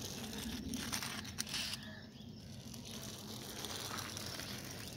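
Small plastic toy bus pushed along rough concrete by hand, its plastic wheels rolling with a faint gritty scraping and a few light clicks.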